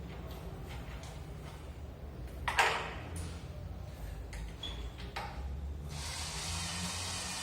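Kitchen door noises: faint clicks and one louder knock about two and a half seconds in, over a low steady rumble. A steady hiss starts suddenly about six seconds in.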